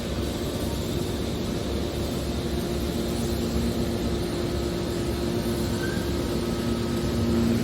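Hydraulic scrap metal baler running: a steady machine drone with a constant low hum.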